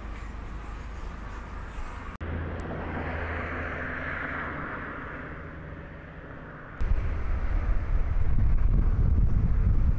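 Outdoor ambience with a vehicle passing, its sound swelling and fading about three to five seconds in. From about seven seconds in, gusts of wind buffet the microphone, the loudest sound here.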